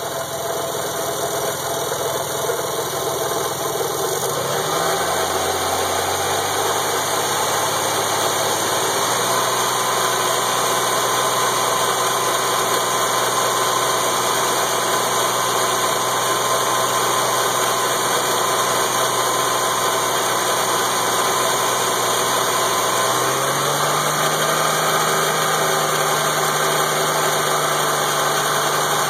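Nissan 300ZX twin-turbo 3.0 L V6 (VG30DETT) running at idle during a coolant-funnel test for a suspected head gasket leak. The idle speed steps up a few times.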